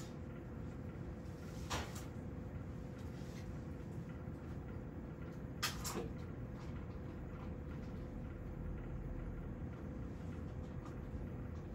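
Steady indoor room tone with a faint constant hum, broken by a short knock about two seconds in and a pair of sharper knocks close together a little before halfway.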